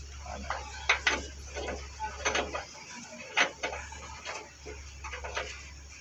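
Irregular clicks and knocks of a steel axle flange being handled and slid back onto a wheel backhoe's axle, a few sharp metal-on-metal contacts among lighter taps.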